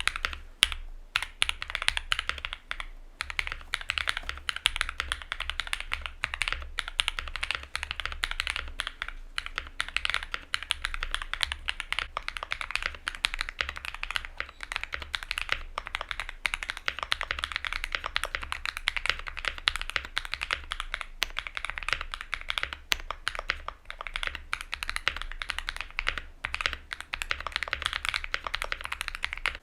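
Continuous fast typing on a custom Luminkey65 mechanical keyboard with lubed and filmed switches on an FR4 plate: a dense, steady stream of clacky keystrokes.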